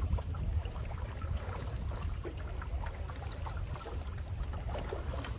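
Canoe paddle strokes, the blade dipping and pulling through lake water with splashing and trickling, over a steady low rumble of wind on the microphone.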